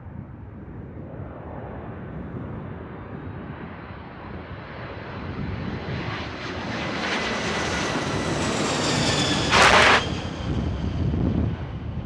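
Twin-engine jet airliner on final approach passing low overhead. The engine noise swells from faint to loud, with a high turbine whine falling slightly in pitch, over a steady rumble of wind on the microphone. Near the end comes a sudden, very loud burst about half a second long.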